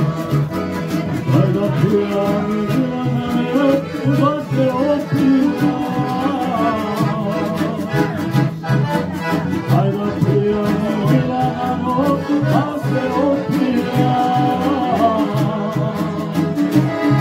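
Lively music with a steady, repeating bass beat and a wavering melody line over it.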